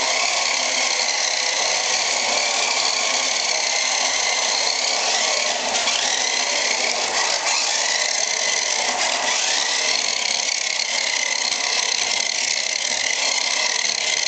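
Radio-controlled Nissan Skyline drift car's motor and gears whining steadily while it drifts around on a tile floor, the pitch rising and falling a little with the throttle.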